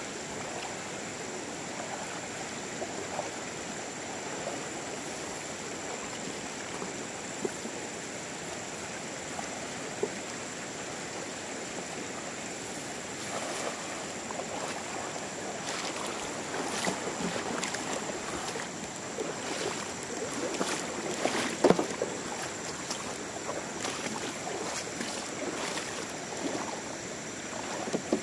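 Steady rush of a shallow river running over stones, with splashing and sloshing from a man wading and a cast net hitting the water and being hauled back in. The splashes grow busier in the second half.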